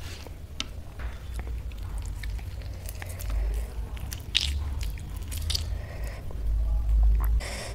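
Close-miked eating sounds: fingers squishing and mixing rice with curry on a metal plate, with small wet clicks and crackles. Around the middle a lime half is squeezed over the rice, and there is chewing.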